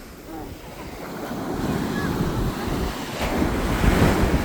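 Sea surf washing onto the beach, swelling louder twice as waves come in, with wind on the microphone.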